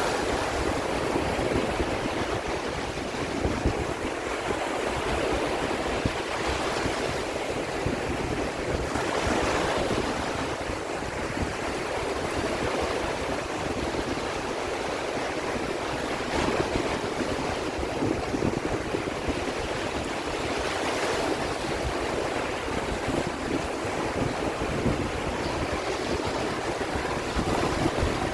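Sea waves washing in a continuous hiss that swells now and then, with wind rumbling on the microphone.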